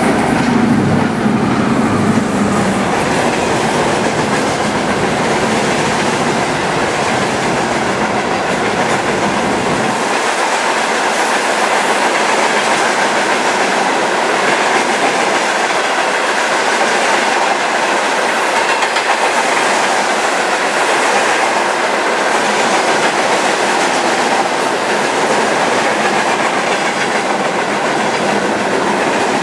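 Railway wagons rolling steadily past, wheels clattering over the rail joints, behind a pair of ER20 diesel locomotives; a deep low rumble, the locomotives moving off, drops away about ten seconds in.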